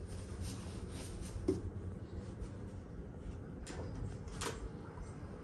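A steady low hum with a few soft clicks and knocks over it, about one and a half seconds in and twice near the end.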